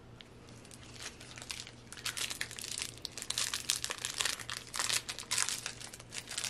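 A Cadbury Flake chocolate bar's wrapper being torn open and crinkled by hand. It starts with a few crackles about a second in and becomes a busy, rapid crackling from about two seconds on.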